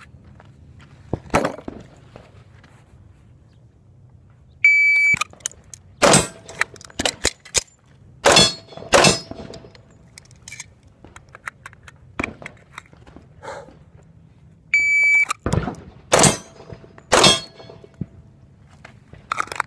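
Two strings of semi-automatic pistol fire. Each starts with a half-second electronic beep, like a shot-timer start signal, followed about a second later by three loud shots spread over two to three seconds. Fainter pops and a sharp report about a second in fill the gaps.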